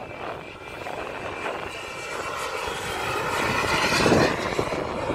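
Jet aircraft's turbine engine during a flyby: a rushing noise with a high whine, growing louder to a peak about four seconds in, then easing slightly.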